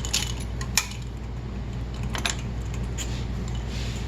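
A few light clicks and taps of hand tools being handled under the hood, over a steady low hum.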